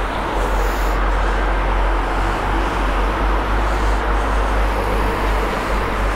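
Steady wind and road noise from a camera riding on a bicycle along a city bike lane, a constant low rumble with car traffic passing on the road alongside.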